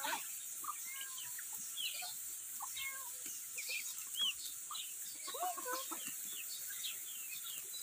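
A flock of ducks and other poultry crowding in to feed, calling with many short, high, overlapping peeps and chirps.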